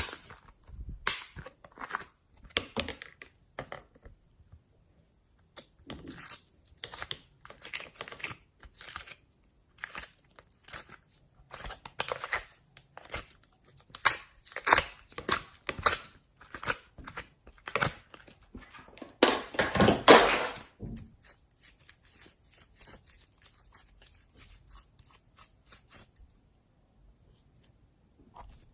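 Slime being squeezed, stretched and torn by hand: a string of short crackling, tearing sounds, loudest about twenty seconds in and thinning out near the end.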